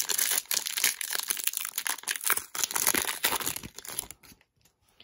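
A 2019 Donruss Optic baseball card pack's foil wrapper being torn open and crinkled by hand: a dense crackling rustle that stops about four seconds in.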